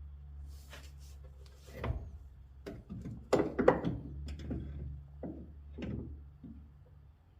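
Scattered clunks and knocks of a pickup's front strut assembly being handled and worked into place against the suspension, the loudest a quick cluster a little past three seconds in, over a steady low hum.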